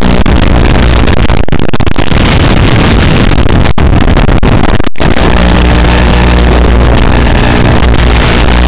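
Loud, steady buzzing static from an analog FPV video receiver's audio channel, recorded by the goggles' DVR, with a low hum underneath. It cuts out for an instant twice, about four and five seconds in, as the video signal breaks up.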